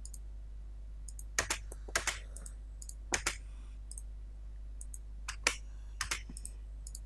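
Computer mouse button and keyboard key clicks: about six sharp clicks, several in quick pairs, over a steady low electrical hum.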